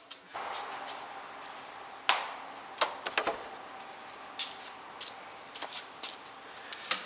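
Sharp knocks and clicks at uneven intervals over a steady background rush, as in a Toyota Esquire minivan on the move. The knocking is the abnormal driving noise that the uploader puts down to the shock absorbers.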